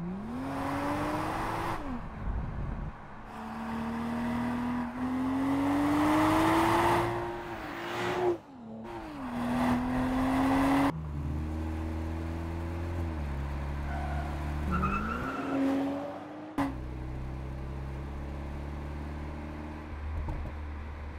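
BMW M440i xDrive Coupé's inline six-cylinder petrol engine accelerating. Its note climbs and drops back several times as it shifts up. In the last few seconds it settles into a steady low hum at a light throttle.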